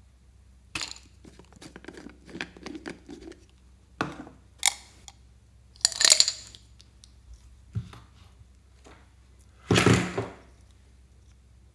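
Close-up handling noises from a plastic container being held and tipped over a bowl of slime: scattered clicks and rubbing, with louder rasping noises about six seconds in and again near the end.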